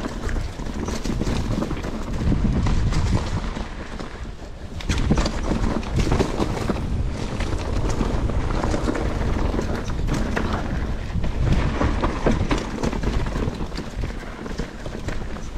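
Wind buffeting the microphone over the rumble and rattle of a mountain bike being ridden, with many small clicks and knocks from the bike over rough ground.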